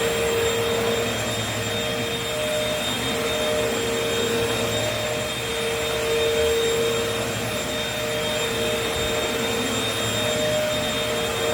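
Vacuum cleaners running steadily: a continuous rush of air with a steady whining tone over it.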